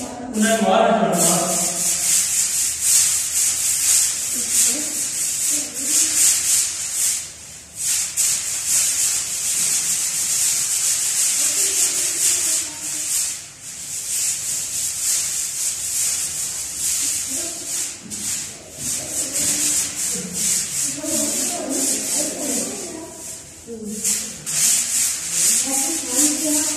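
Broom sweeping dust and grit off a bare concrete floor in quick, repeated scratchy strokes, with a few short pauses. Faint voices underneath.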